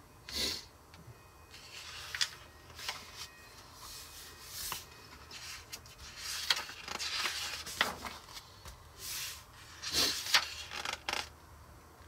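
Pages of a glossy magazine being turned and handled: a series of paper rustles and swishes, with the pages turned over twice.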